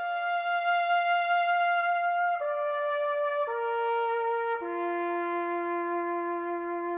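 A solo brass horn, trumpet or bugle in tone, playing slow held notes: a long high note, then three lower notes each about a second long, stepping down to a low note that is still held at the end.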